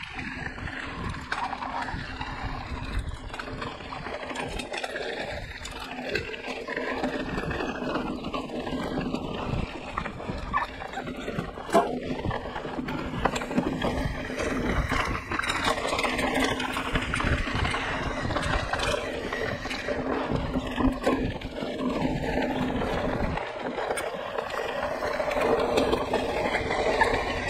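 Mountain bike ridden along a dirt trail, heard from a camera strapped to the rider: a steady rush of wind and tyre noise, with many small knocks and rattles over the bumps.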